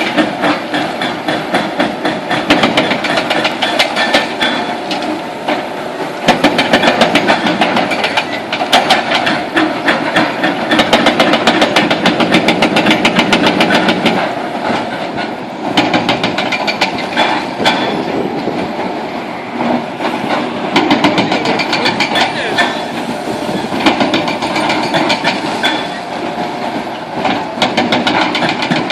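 Heavy demolition excavator breaking up a concrete bridge: a loud, fast, continuous rattle of impacts on concrete over the running engine, sometimes stronger and sometimes easing off.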